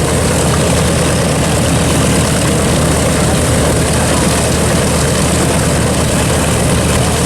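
B-25 Mitchell bomber's two radial engines running steadily at idle after both propellers have been started.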